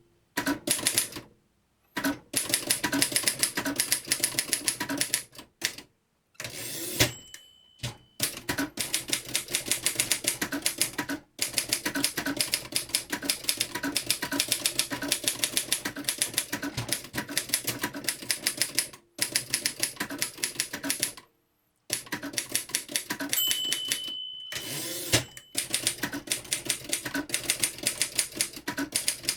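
Typing on a 1965 Royal Empress manual typewriter: runs of rapid key strikes with short pauses between them. Twice a steady bell ding sounds, each next to a rushing sweep, fitting the margin bell and a carriage return.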